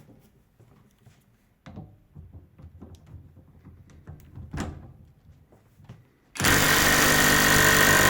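Small knocks and clicks of handling, then about six seconds in a Parkside Performance PPDSSA 12 A1 12V cordless impact wrench starts hammering loudly and steadily, running in reverse against a torque tester.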